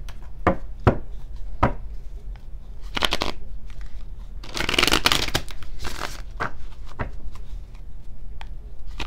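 A tarot deck being handled and shuffled by hand: a few sharp taps of the cards, then bursts of shuffling, the longest and loudest about five seconds in.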